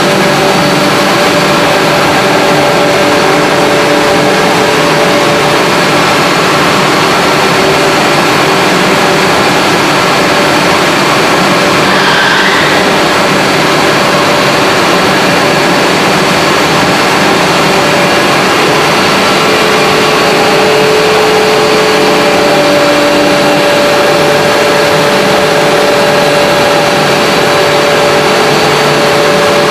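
HDPE pipe extrusion line running: a loud, steady machinery noise with a few constant hum tones.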